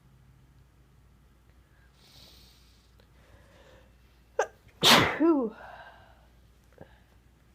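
A single loud sneeze about five seconds in, with a short sharp catch just before it and a voiced tail that falls in pitch.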